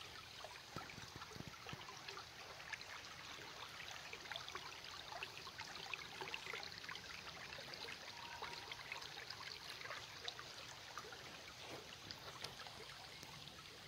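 Small woodland brook trickling faintly, a steady light water sound, with a few soft thumps about a second in.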